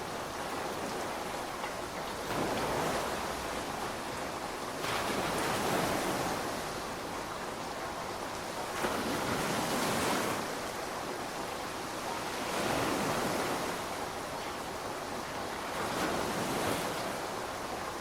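Rain falling as a steady hiss that swells louder and fades back about every three to four seconds; no thunder is heard.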